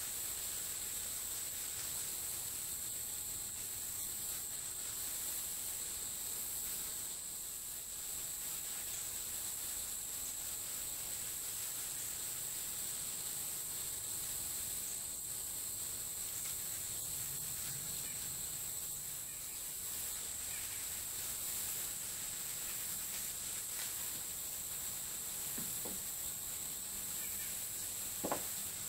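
Steady high-pitched insect drone, with a couple of faint knocks near the end and one sharper click just before the end.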